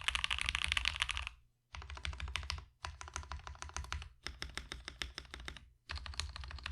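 Typing on a keyboard fitted with Jwick Yellow Pro linear switches (factory-lubed, 65 g springs, polycarbonate top and nylon bottom housings), the keystrokes on the clacky side. A fast flurry of keys in the first second or so, then several shorter runs of keystrokes separated by brief pauses.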